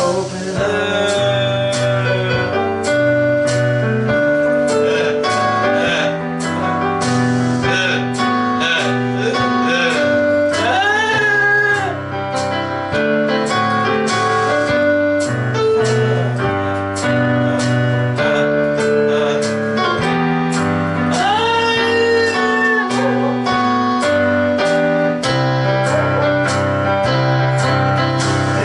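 Music: a song sung over instrumental accompaniment with a steady beat.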